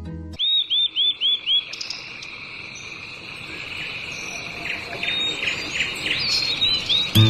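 Birds chirping over a steady, high-pitched insect drone: a quick run of five short chirps near the start, then scattered chirps later. Music cuts out just as it begins and comes back right at the end.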